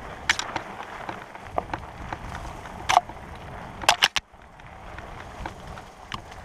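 REI Co-op 2.1 hardtail mountain bike rolling over a rough dirt singletrack: a steady rumble of tyres on dirt with sharp knocks and rattles over bumps, the loudest about three seconds in and a quick cluster around four seconds in.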